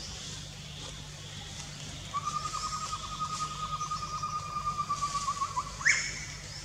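A bird calling: one long, rapidly pulsed trill on a single steady pitch, about three and a half seconds long, starting about two seconds in and ending in a quick upward sweep, the loudest moment.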